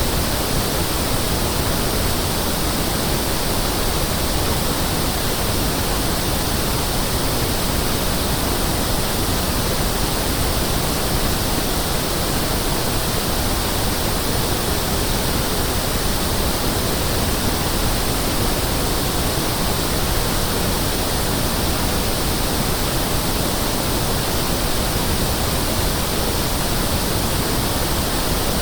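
Pink noise test signal: a steady, even hiss with equal energy in every octave, used as a sound test for speakers and rooms.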